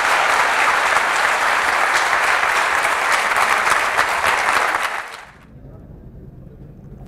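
Audience applause from a packed auditorium. It breaks off about five seconds in, leaving a faint low hum.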